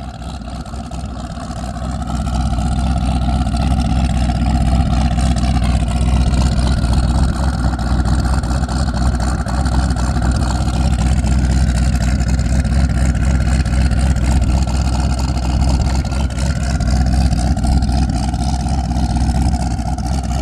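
A vehicle engine running steadily with a heavy low rumble, building up over the first couple of seconds and then holding.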